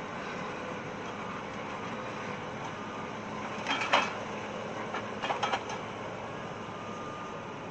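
Log processor, an excavator carrying a processing head, running steadily at a distance. A cluster of sharp knocks comes about four seconds in, and another around five and a half seconds, as the head works the logs.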